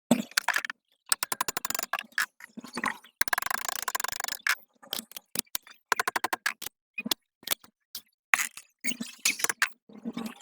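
Handling noises from motor repair work: rapid clicks, rattles and scrapes of small hard parts and tools, in short bursts with dead silence between them, including a longer scrape near the middle.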